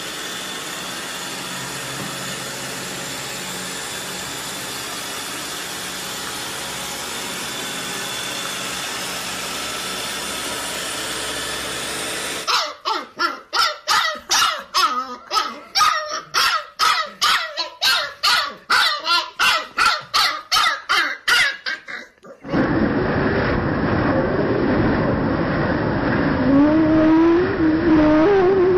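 A robot vacuum runs with a steady whirring hiss. About twelve seconds in, a husky puppy takes over with quick repeated yaps, about two a second, for some ten seconds. Near the end there is a loud, even rushing noise with a dog growling over it.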